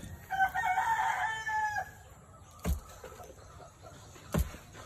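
A rooster crows once, a long call with a drawn-out ending, in the first two seconds. This is followed by two sharp thuds about a second and a half apart: a steel digging bar striking the hard earth of a termite mound.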